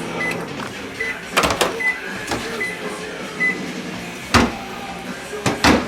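Kitchen sounds: a steady appliance hum stops about half a second in, followed by several short high beeps and a few sharp knocks, the loudest near the end.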